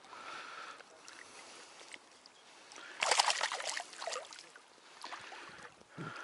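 Water sloshing and splashing, with a louder burst of splashing about three seconds in.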